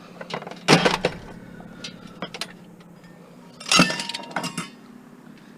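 Discarded junk and scrap metal being handled: two bursts of clattering and clinking, the second about three seconds after the first and trailing off in a few smaller knocks.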